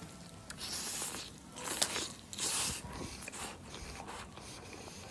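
A person biting and chewing crisp, chili-coated grilled food close to the microphone: a few loud crunchy bites between about one and three seconds in, then quieter chewing.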